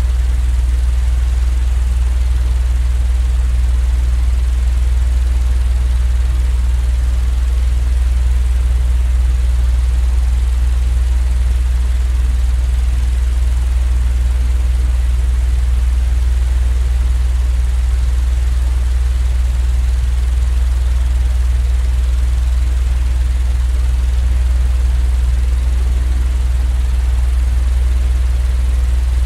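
A steady, unchanging mechanical drone with a strong low hum and an even hiss over it, played as a continuous white-noise sleep sound.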